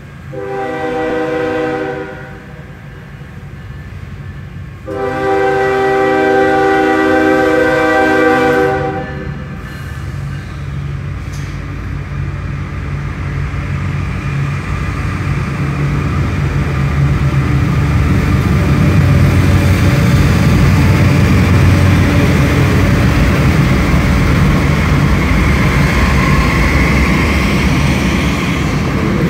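Freight train's diesel locomotive horn sounding a short blast and then a long one, followed by the heavy rumble of the locomotive and then the freight cars rolling past close by, growing louder as the train passes.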